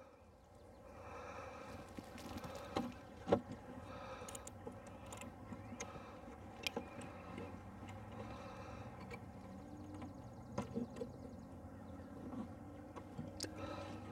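Honey bees buzzing in a steady low hum, with a few sharp clicks and knocks as a queen cage is pressed down between the wooden top bars of hive frames.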